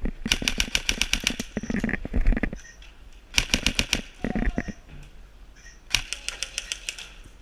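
Airsoft rifle firing three full-auto bursts of rapid, evenly spaced shots: a longer one just after the start, a short one in the middle and another near the end, with dull thuds of movement in between.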